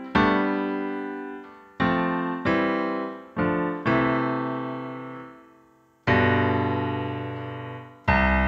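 GarageBand's Steinway Grand Piano software instrument played from a MIDI keyboard: about seven chords, each struck and left to ring and fade. It runs through the standard grand piano EQ preset, which has a full low end and a boost around 2 kHz.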